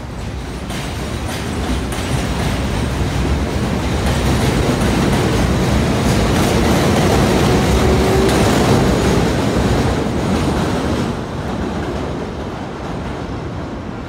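An R62A New York subway train passes close along the platform, its wheels running on the rails. The sound builds to its loudest about halfway through and then fades as the train moves away.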